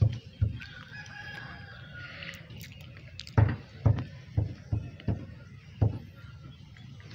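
Footsteps thudding on muddy ground, roughly two steps a second, from the person walking with the camera. A rooster crows more quietly behind them about a second in.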